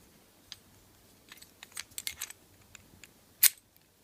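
Light clicks and rattles of a key and a Master Lock 410 lockout padlock being handled, then one sharp, much louder click about three and a half seconds in.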